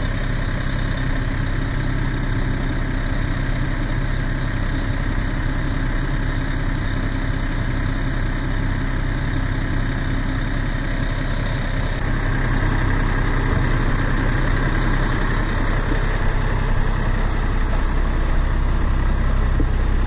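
Tow vehicle's engine running at a low, steady idle while backing up an RV trailer; it grows a little louder about twelve seconds in.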